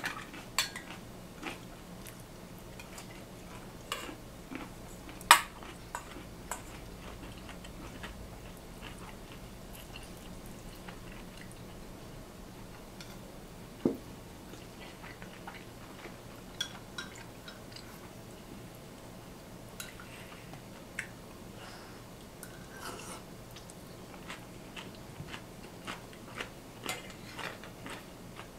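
Chopsticks clicking against stainless steel bowls and a rice pot during a meal, with chewing in between. The clinks come at scattered moments; the sharpest is about five seconds in, with another about fourteen seconds in.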